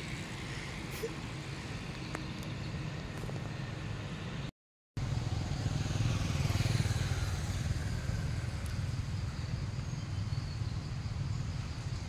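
Steady low rumble of a motor vehicle engine. The sound cuts out completely for about half a second near the middle, then comes back a little louder.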